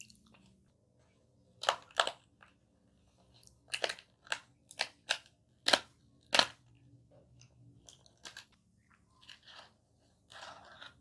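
Close-mic bites and chewing of a crispy fried fast-food pie crust. About eight loud, sharp crunches come in the first half, then quieter chewing crunches.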